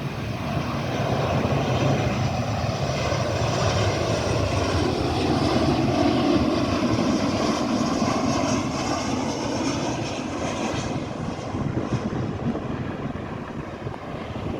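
Jet engines of an arriving Southwest Airlines Boeing 737 passing by, a steady roar that swells over the first few seconds, peaks about six seconds in and then slowly fades.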